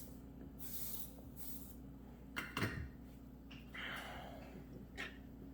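Light handling noise as wires and a holding clip are set back up for soldering: a few small knocks and clicks, loudest in a cluster about two and a half seconds in, with brief soft rustles between, over a low steady hum.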